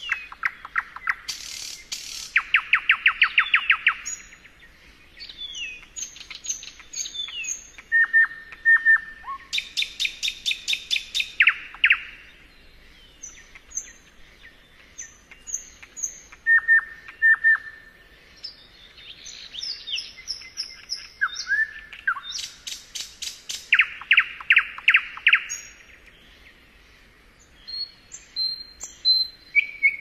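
Nightingale singing in separate phrases of fast repeated notes, rapid trills and short clear whistles, with brief pauses between phrases.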